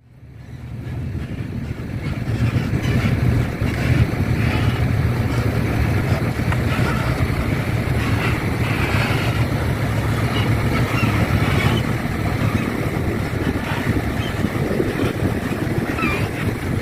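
Steady engine drone of an excavator and dump truck at work, fading in over the first two seconds and then holding level.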